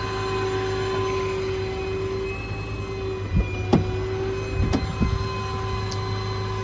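A steady mechanical hum with a constant whine. A few sharp clicks and knocks come in the middle.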